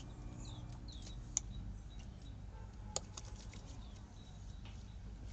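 Two sharp clicks from handling a small plastic bottle of oil, one about a second and a half in and one about three seconds in, over a faint steady background with a few short high chirps.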